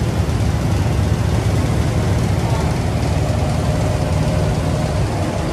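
Tea-factory grading machinery and its dust-extraction blower running: a steady low drone with an even hiss over it.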